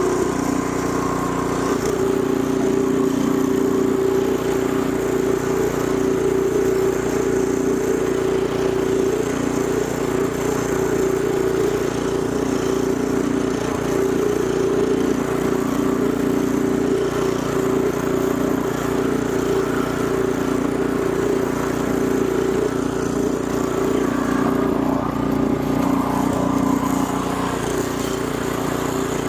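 Biltema ST56 snow blower's engine running steadily as the machine chews through snow.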